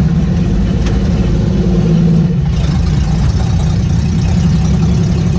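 Willys truck engine running while the truck drives, heard from inside the cab. The steady note drops out briefly about two and a half seconds in.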